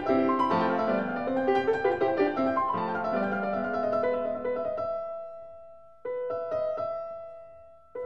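Background piano music: a quick run of notes, then held chords that die away, with a fresh chord struck about six seconds in.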